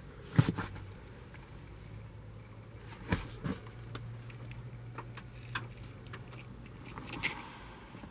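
A low steady hum with a few short knocks and rustles as a handheld camera is moved around a vehicle's cabin: one sharp knock about half a second in, two more around three seconds in, and another near the end.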